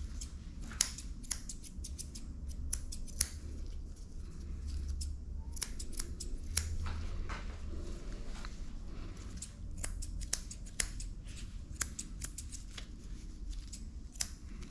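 Grooming scissors snipping through a dog's coat in quick, irregular runs of sharp clicks, with a short pause about four seconds in, over a low steady hum.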